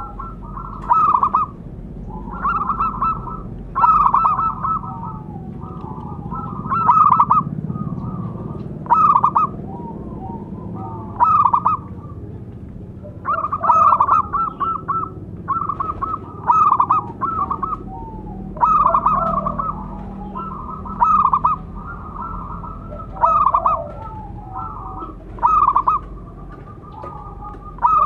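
Zebra dove (perkutut) cooing: short phrases of quick staccato coo notes, repeated every second or two over a faint low hum.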